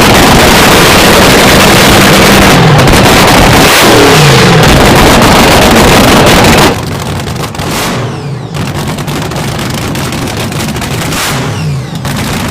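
Nostalgia top fuel dragster's V8 engine running very loud and crackling, its pitch falling a few seconds in. About two-thirds of the way through it drops suddenly to a quieter, lumpy idle that keeps crackling.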